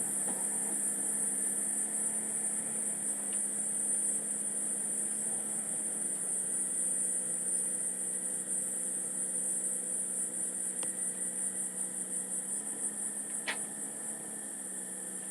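Insects chirring steadily at a high pitch, pulsing toward the end, over a steady low hum. A light click about 11 seconds in and a sharper one at about 13.5 seconds.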